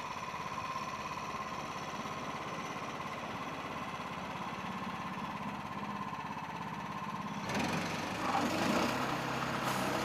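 Honda GX390 single-cylinder engine of a portable band sawmill running steadily, with a steady high whine over it. About seven and a half seconds in, the sound changes and grows louder and rougher.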